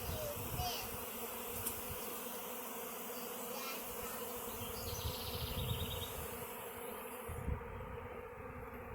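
Honeybee swarm in flight, a steady dense buzzing hum of many bees as the swarm settles on a swarm trap to move into.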